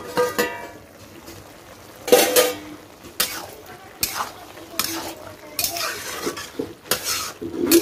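A metal lid clanking twice with a short ring as it comes off a metal kadai. Then a metal spatula scrapes and knocks against the pan about once a second, stirring chopped white pumpkin (ash gourd).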